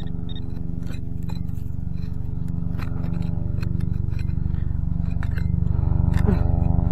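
Repeated scraping and clinking of a digging tool in hard soil while a metal-detector target is dug out, over a steady low hum that grows slightly louder.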